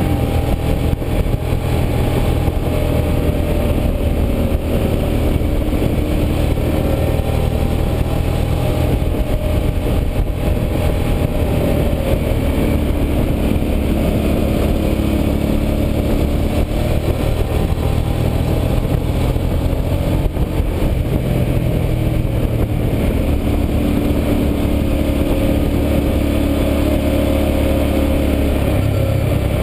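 Hyosung GV650i Aquila's V-twin engine running under way, its note rising and falling several times with the throttle through the bends, over steady wind noise on the microphone.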